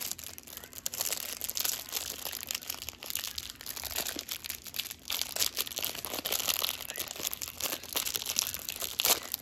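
Plastic wrapping crinkling and crackling continuously as gloved hands unwrap a pack of Panini Prestige football cards.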